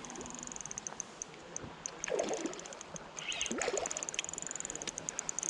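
Shallow river current flowing and trickling steadily, with small splashy clicks. Faint voices come in twice in the background.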